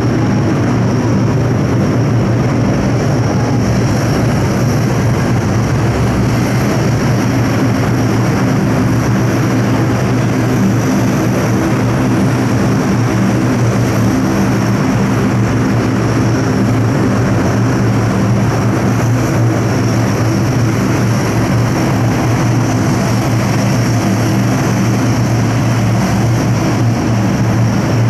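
C-130H Hercules turboprop engines running steadily: a droning propeller hum with a thin high turbine whine above it.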